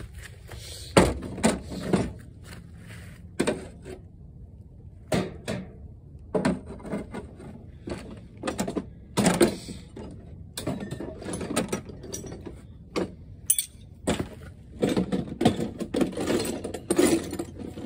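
Metal tools clinking and knocking against a rusty Wisconsin V4 engine's block as its remaining head bolts are worked out: many irregular sharp metal clinks and knocks.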